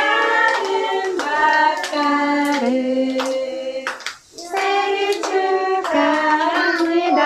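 A group of young children singing a birthday song together and clapping along in time, with a brief pause a little past halfway.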